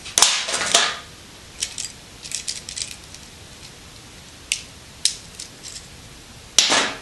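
Hand tools and a plastic duplex receptacle handled on a workbench: a clatter as pliers are set down, then scattered small clicks and taps as a screwdriver works the receptacle's terminal screws, and another loud clatter near the end.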